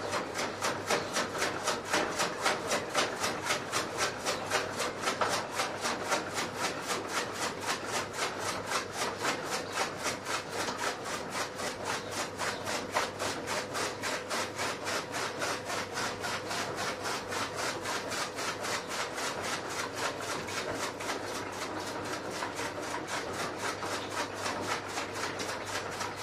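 Hand-milking of a cow: jets of milk squirting into a steel bucket already holding milk, in an even swishing rhythm of several squirts a second, a little louder in the first few seconds.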